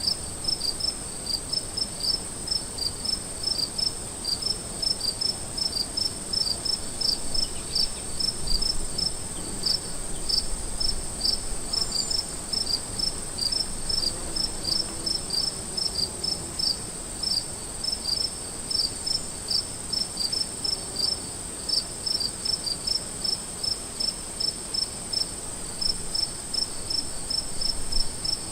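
Cricket chirping: short high chirps repeated two or three times a second, over a steady high-pitched trill.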